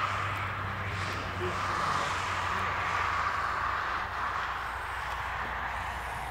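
A massed chorus of common cranes calling in flight, many distant calls blended into one continuous murmur. A low steady hum lies underneath.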